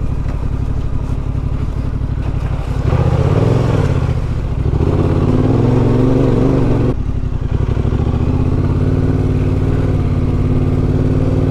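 Yamaha Ténéré 700 parallel-twin engine running at low trail speed. About three seconds in it rises in pitch as the throttle opens, then drops back sharply about four seconds later.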